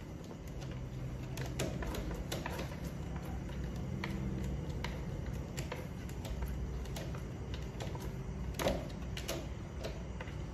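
Scattered, irregular light clicks and taps over a steady low hum, with one sharper knock about three-quarters of the way through.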